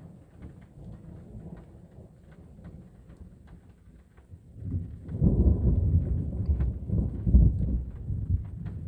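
Thunder: a low rumble that swells into a loud, rolling peal about five seconds in and keeps rumbling, with scattered light ticks throughout.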